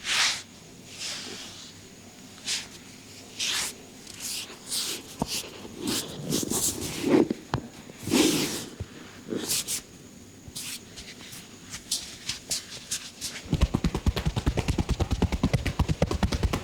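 Hands rubbing and working over the head and hair in irregular swishing strokes during a head massage. About three-quarters of the way in, this changes to fast, even tapping with the hands, roughly ten strikes a second.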